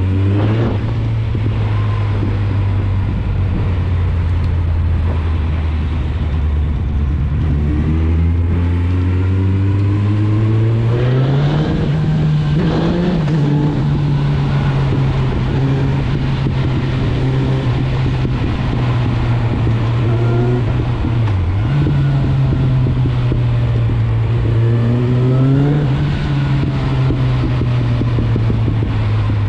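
Suzuki GSF 650 Bandit's inline-four engine running through an Akrapovic exhaust while riding. The engine note climbs steeply twice under throttle, about a third of the way in and again near the end, and drops briefly in between.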